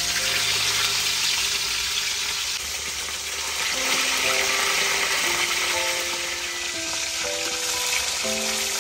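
Whole fish frying in hot oil in a wok: a loud, steady sizzle. Light background music with a simple melody comes in about four seconds in.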